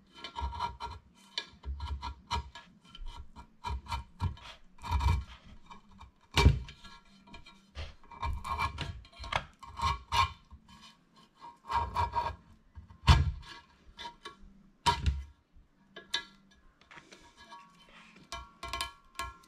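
Chisel scraping and picking hardened glue and old foam surround off the rim of a vintage Cerwin Vega woofer's frame: irregular short scraping strokes with clicks, and a few sharper, louder strikes.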